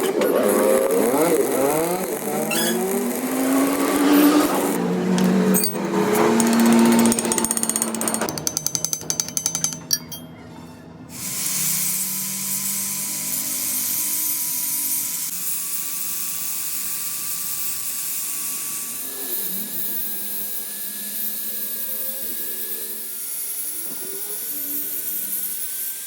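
Workshop power-tool noise: a fast rattling hammering for a few seconds partway through, then a steady hissing run with a faint whine, over background music.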